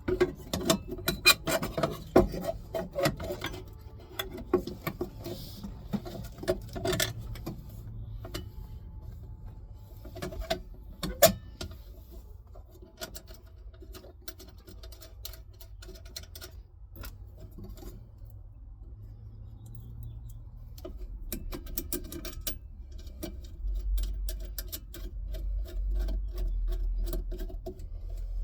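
Scattered clicks, taps and rustles of hands handling plastic wiring connectors and parts, over a faint steady hum. A low rumble comes in over the last few seconds.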